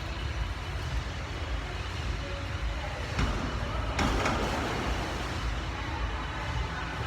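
Bus ride: steady low engine and road rumble, with a short knock about three seconds in and a sudden hiss about four seconds in that fades quickly.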